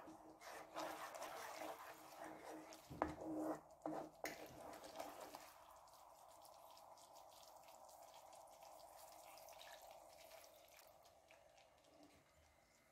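Spatula stirring and scraping a thick, creamy sauce in a nonstick pan, with a sharp knock about three seconds in. After about five seconds there is only a faint steady hiss of the sauce cooking, fading near the end.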